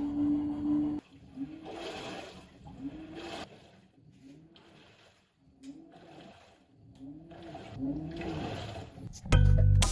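LG washing machine agitating: the drum turns back and forth with a motor whine that rises and falls on each stroke, about once a second, over the swish of water and laundry. Music stops about a second in, and a loud sound starts near the end.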